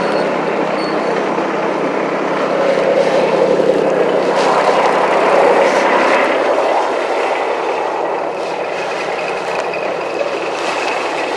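Small Kubota compact tractor's engine running steadily, growing a little louder for a couple of seconds around the middle.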